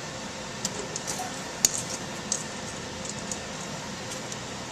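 A few light, scattered clicks and taps of kitchen utensils on kitchenware while pastry is egg-washed, over a steady kitchen hum.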